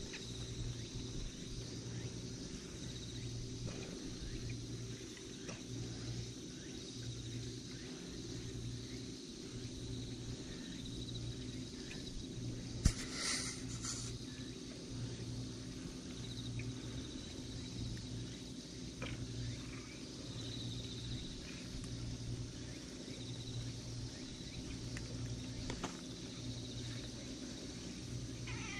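Outdoor background: faint steady insect chirring over a low hum that swells and fades about every second and a half. A single sharp click comes about 13 seconds in, followed by a brief rustle.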